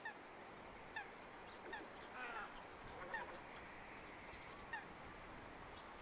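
Faint scattered bird calls: short downward-sliding notes and a few brief high whistles, with a cluster of calls about two seconds in.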